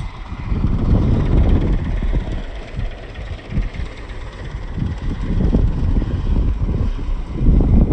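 Strong wind buffeting the microphone, a deep gusty rumble that swells and eases every second or two.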